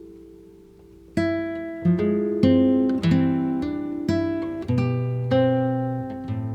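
Acoustic guitar music played back through a JBL Xtreme3 Bluetooth speaker as a sound test. A chord rings out and fades over the first second, then plucked chords follow about every half second.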